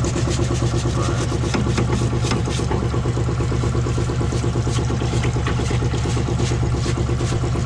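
A machine running steadily, a strong hum with a fast even pulse, with scattered clicks and scrapes on top.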